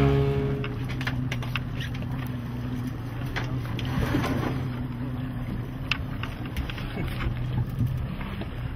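Boat engine running at low speed, a steady low hum, with scattered small clicks and knocks on board.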